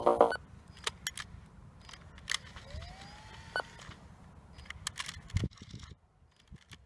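Aiwa HS-PX580 cassette player's buttons and tape mechanism clicking as the music cuts off, with scattered clicks and a brief rising motor whine in the middle that ends on a click.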